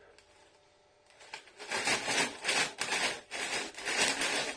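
A man sniffing crisps up close, several short sniffs in a row.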